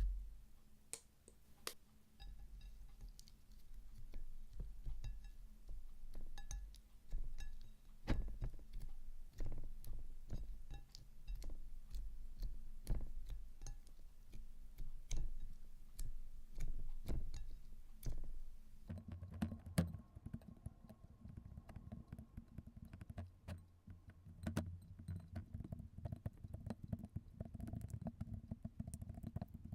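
Hands squishing and pressing slime, with many small sharp crackling clicks over a soft low squelch. About two-thirds through, the sound turns deeper and denser.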